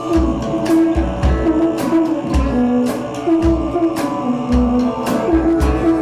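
Background music: a song with singing over a steady beat.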